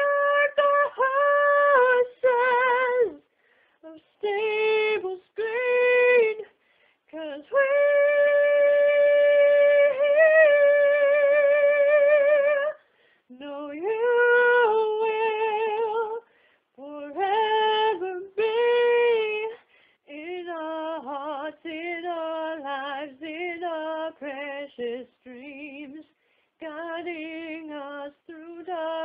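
A woman singing a slow melody unaccompanied, with vibrato and long held notes, the longest about five seconds, in phrases separated by short silences. In the last third the phrases sit lower and quieter and move through quicker notes.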